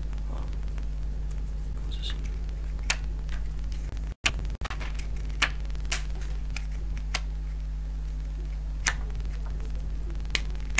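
Playing cards sprung one at a time off the top of a held deck by a bent finger, each leaving with a sharp snap: about six snaps at irregular intervals, over a steady electrical hum.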